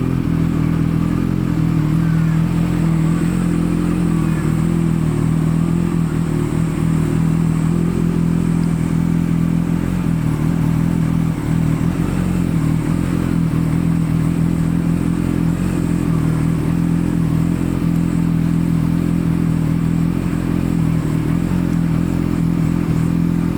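Kawasaki Z1B's air-cooled 903 cc inline-four idling steadily through MRS short exhaust pipes.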